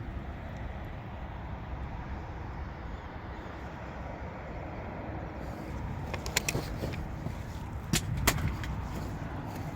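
Steady outdoor background noise, with a few sharp clicks about six seconds in and two louder knocks in quick succession about eight seconds in.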